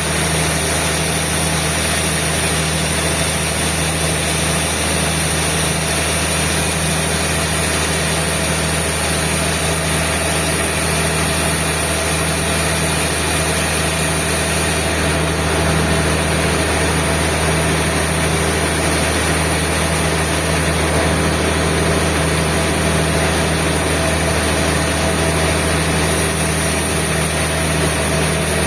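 Sawmill machinery running steadily: a constant motor hum with an even hiss over it, with no breaks.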